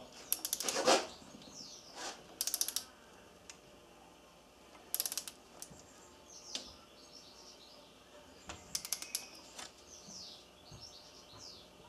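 Torque wrench ratcheting in four short bursts of rapid clicks as the ARP cylinder-head stud nuts are run down. Birds chirp faintly in the background.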